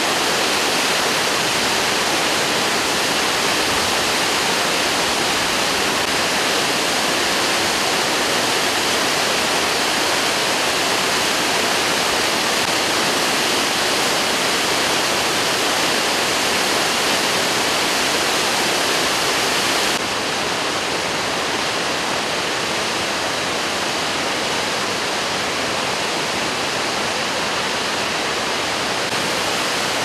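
Waterfall of about 20 metres in full spring flow, heavy water crashing down with a dense, steady rush. It gets slightly quieter about two-thirds of the way through.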